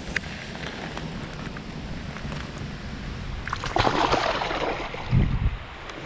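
Water sloshing at the river's edge, then a splash about four seconds in as a smallmouth bass is released back into the water. A short low thump follows about a second later.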